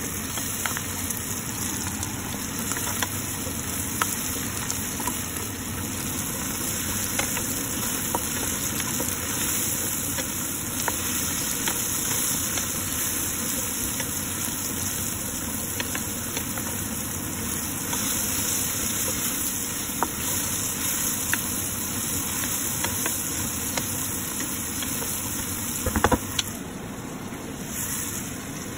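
Mushrooms, garlic and cherry tomatoes sizzling steadily in oil in a frying pan, stirred with a wooden spatula, with light scrapes and taps against the pan. A single sharp knock a few seconds before the end.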